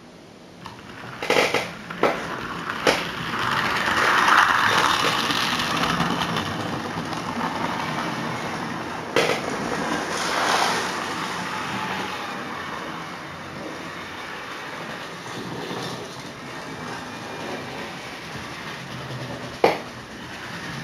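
OO-gauge model train running on the layout's track, its rumble building over the first few seconds and then slowly fading as it moves away. Several sharp clicks in the first three seconds, another around nine seconds and one near the end.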